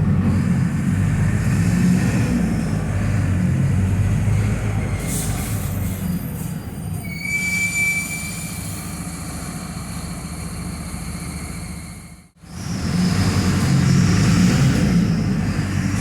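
Mercedes-Benz OF-1721 BlueTec 5 bus diesel engine running under way. It eases off in the middle, where a steady high whine sounds for about two seconds, and it pulls loud again after a sudden brief dropout about twelve seconds in.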